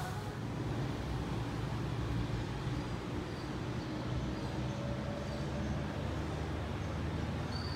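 Steady low rumble of a moving vehicle, with a thin high whine coming in near the end.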